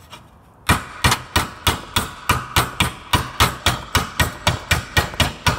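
Hammer tapping a new control arm bushing into a 2005 Subaru Outback's control arm, starting under a second in and going on at a steady pace of about three blows a second. Each blow gives a sharp knock with a brief metallic ring.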